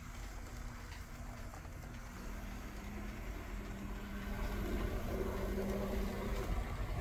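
Märklin Z-scale BR 212 model diesel locomotive running on the layout track: a small electric motor humming with a faint steady tone and the wheels rolling on the rails, getting louder in the second half.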